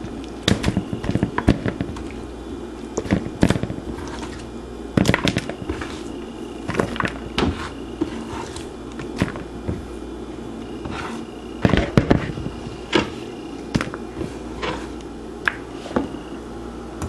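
Sliced tomato and onion dropped into a plastic mixing bowl: irregular soft knocks and clatter, over a steady low hum.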